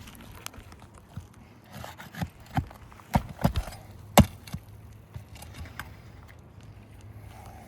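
GAF Royal Sovereign asphalt shingles being lifted by hand along the roof: a series of sharp cracks and taps, the loudest about four seconds in, as tabs are pried up to check whether they have sealed down.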